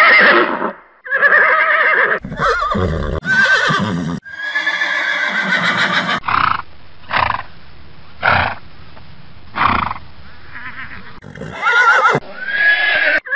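Horses whinnying and neighing, several calls in quick succession with wavering, falling pitch. Then come a few short sharp sounds about a second apart, and a final whinny near the end.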